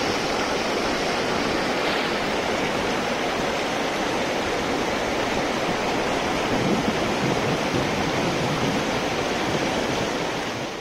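River water pouring steadily over a check dam, an even rushing sound that trails off at the very end.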